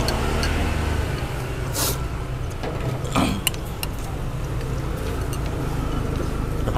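Steady low background rumble with a few short slurps and spoon-on-bowl clinks from people eating pho. The clearest come about two seconds in and again about three seconds in.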